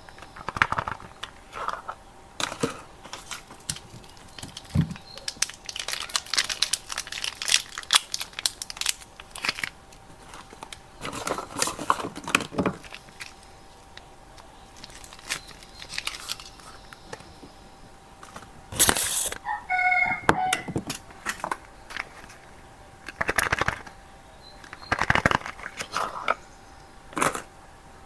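Soap packaging being crinkled and torn open by hand, in irregular bursts of crackling and rustling, with a brief squeak about two-thirds of the way through.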